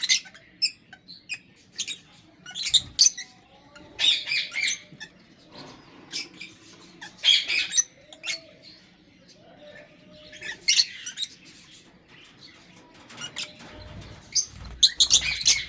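Lovebirds chirping in short bursts of sharp, high-pitched chirps every few seconds, with quieter spells between and a busier run of chirps near the end.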